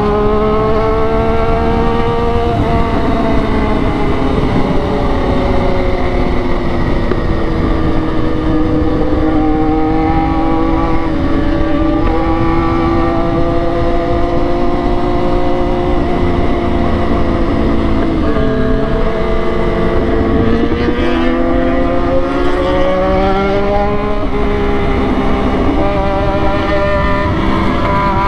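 Triumph Daytona 675R's inline three-cylinder engine heard from the rider's seat while riding, with heavy wind noise on the microphone. The engine note eases down slowly, dips twice about two-thirds of the way through, then climbs again near the end.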